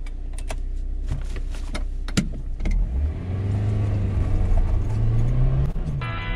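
Car engine heard from inside the cabin, idling with a few sharp clicks, then pulling away: the engine note rises steadily for a few seconds and dips briefly near the end. Music starts just before the end.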